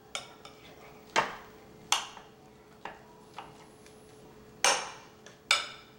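Metal spoon clinking against glass dishes as a creamy topping is scooped and spread. The clinks come at irregular intervals, four of them sharp and loud and several softer, over a faint steady hum.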